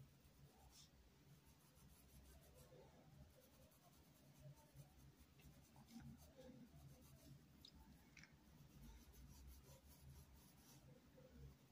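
Near silence, with the faint scratching of a paintbrush stroking over cloth as fabric paint is brushed on, and a low hum underneath.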